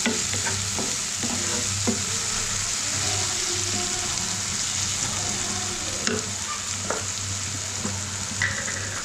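Beef liver curry masala frying in oil in a pan with a steady sizzle, stirred with a spoon that scrapes and knocks against the pan several times.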